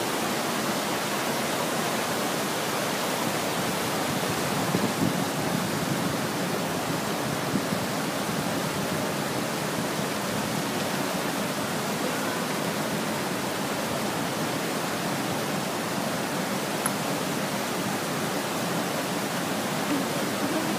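Steady rushing of a fast river's rapids over rocks.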